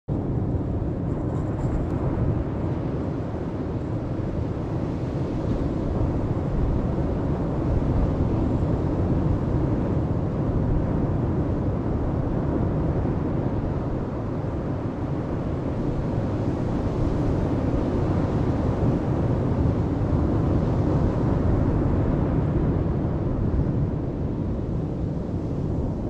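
Atlantic surf breaking on a sandy beach: a steady, deep wash of waves that swells and eases a little as each set comes in.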